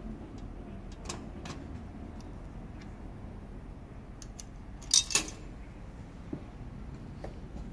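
Metal clicks from the push release button and coin-slot mechanism on top of a Mike Munves Mercury Athletic Scale strength tester worked by hand: a few light clicks, then a sharp double click about five seconds in.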